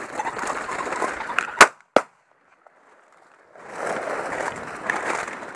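Two shotgun shots from a 28-gauge, less than half a second apart, about one and a half seconds in. Before them and again from about three and a half seconds in, leaves of a beet crop rustle as someone walks through it.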